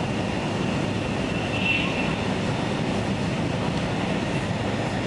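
Steady running noise inside the cabin of a double-deck Shinkansen bullet train at speed: an even low rumble with a faint high tone that swells briefly a little under two seconds in.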